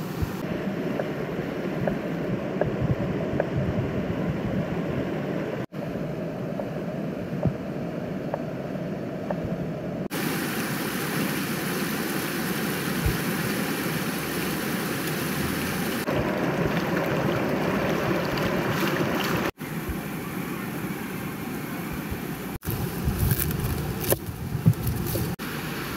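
Steady rush of a flowing river, broken off for an instant several times, with a few sharp clicks near the end.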